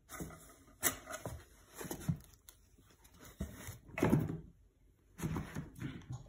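Two cats scuffling in and around a cardboard box: irregular knocks and scrapes of paws and bodies against the cardboard and the wooden floor, the loudest about four seconds in as one cat leaps out of the box, then paws scrambling on the floor as they dash off.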